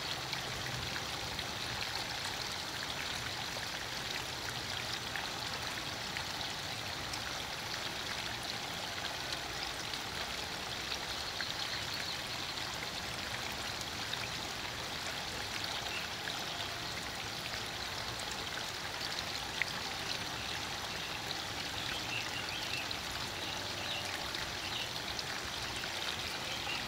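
Steady, even rush of running water, as of a small stream.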